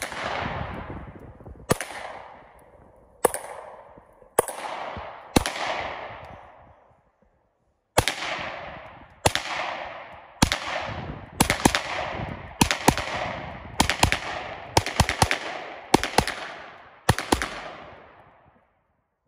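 SIG Sauer P320 M18 9mm pistol fired about twenty times: five spaced shots, a short pause, then a quicker string with some shots in close pairs. Each shot trails off in a long echo.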